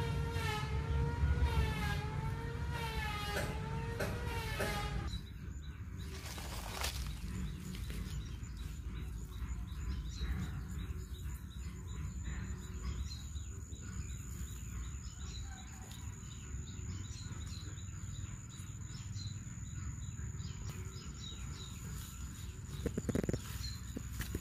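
Outdoor rural ambience: a steady low rumble with scattered bird chirps and, from about halfway, a thin steady high whine. A louder wavering pitched sound fills the first five seconds, then stops suddenly.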